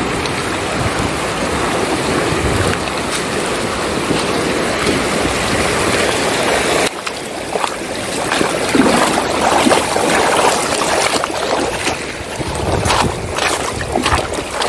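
A steady rushing noise with wind on the microphone, then a sudden cut about halfway through to feet in flip-flops splashing as they wade through a shallow, stony stream, with the water running around them.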